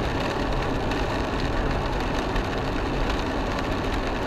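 Steady road noise inside an Isuzu MU-X driving on a wet road in rain: the engine running and the tyres hissing on the wet bitumen.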